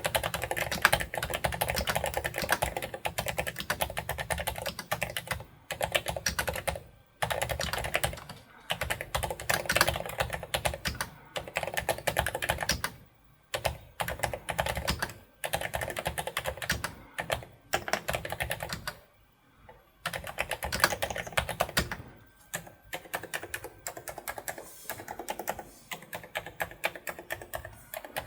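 Royal Kludge S98 96% wireless mechanical keyboard being typed on fast: dense runs of key clicks broken by several short pauses.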